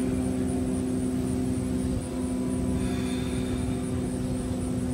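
A steady drone at a constant pitch over a low rumble, even in level throughout.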